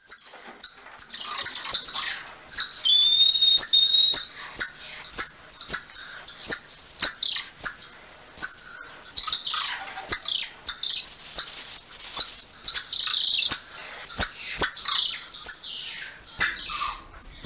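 Golden lion tamarin calling: a rapid string of high-pitched chirps and twitters with sharp clicks, broken by longer clear whistled notes about three seconds and eleven seconds in.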